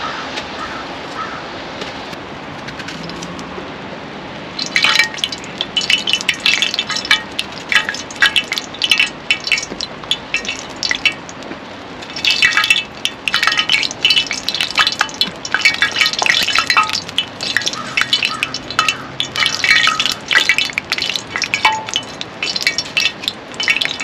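Knife scraping and cutting a piece of yellow yam by hand, in quick irregular crisp strokes that start about five seconds in, over a steady hiss.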